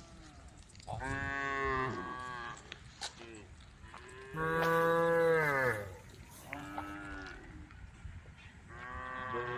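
Cows in a herd mooing in turn, about four calls at different pitches. The longest and loudest, about halfway through, drops in pitch as it ends.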